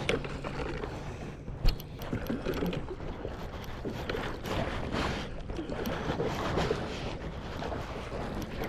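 Water and wind noise around a kayak on a flowing river, with one sharp knock a little under two seconds in.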